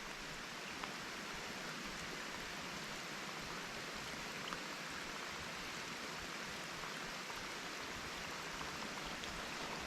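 Steady hiss of rain falling, with a couple of faint ticks.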